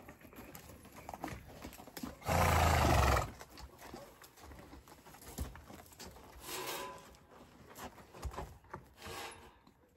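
An Appaloosa horse snorts once, a loud blow lasting about a second, about two seconds in, with a few faint hoof steps on the dirt afterwards.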